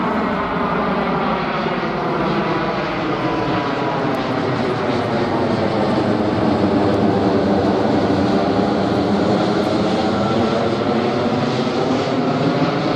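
Boeing 777-200LR's twin GE90 turbofan engines as the airliner passes low overhead: a steady jet roar that swells slightly as it goes over, with a sweeping, phasing tone in it.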